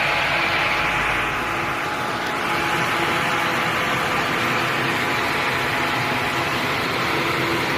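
Portable electric blower fan running steadily: a continuous rush of air with a faint steady whine.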